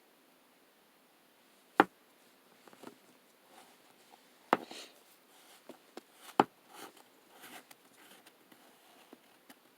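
Three sharp taps, the first about two seconds in and the others near the middle, with soft scattered handling noises between them.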